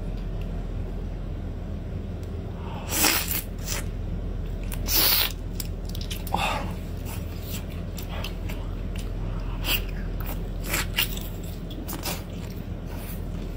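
Wet mouth sounds of a person eating soft marinated mini octopus: two loud slurps about three and five seconds in, then scattered smacking and chewing clicks.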